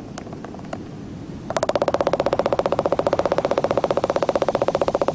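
Waved albatrosses fencing bills in courtship, their bills clacking together in a rapid, even clatter of well over ten clacks a second. The clatter starts about a second and a half in, after a few scattered single clacks.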